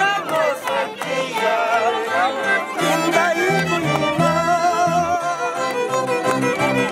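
Live folk band of violin, accordion and Andean harp playing a lively tune, with a man singing over it and the harp's low plucked bass notes repeating beneath the melody.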